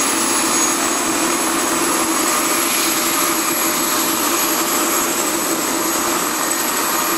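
Tour helicopter's engine and rotor running steadily in flight, a constant dense din with a thin high-pitched whine over it.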